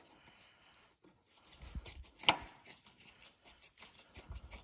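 T15 Torx screwdriver turning a screw through a steel fender washer into the cowl cover's mount: small clicks and light scraping of bit, washer and plastic, with one sharper click about two seconds in.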